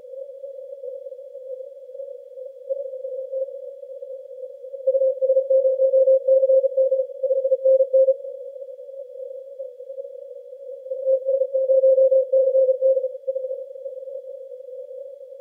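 Morse code (CW) on the 80-metre band, received through a Yaesu FTdx10 transceiver with a narrow CW filter. Static sits at a single pitch throughout, and a stronger keyed Morse signal comes through about five seconds in and again about eleven seconds in.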